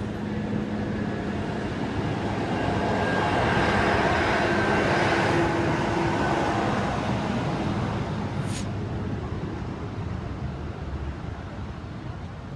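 A heavy vehicle passing by at a level crossing: its engine and rolling noise build up, are loudest about four to five seconds in, then slowly fade away.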